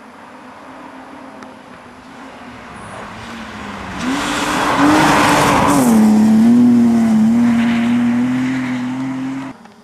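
A BMW 3 Series rally car approaches under hard acceleration and passes close about four seconds in, with a loud rush of tyre and snow noise. Its engine note drops once about six seconds in, then holds steady as it goes away. The sound cuts off abruptly near the end.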